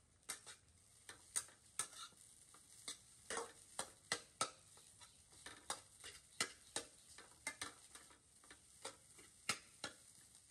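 Metal spatula scraping and clinking against a stainless steel pan as rice with vegetables is stir-fried, in irregular strokes about two or three a second, over a faint sizzle of the frying rice.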